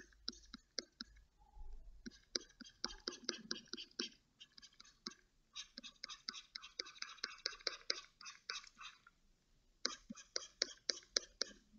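Computer mouse button clicking quickly and repeatedly, about five clicks a second, in three runs with short pauses between them.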